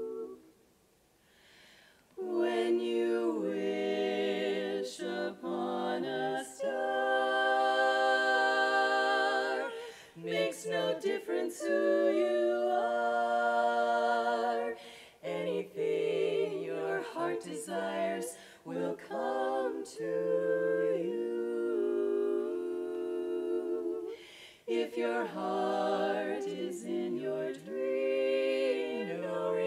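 Women's barbershop quartet singing a cappella in four-part close harmony, with long held chords. A short silence about a second in, then the voices come back in together.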